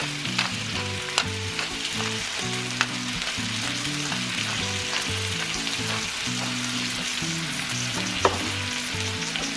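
Thinly sliced potatoes and bacon sizzling steadily as they fry in oil in a skillet, with a few light clicks along the way.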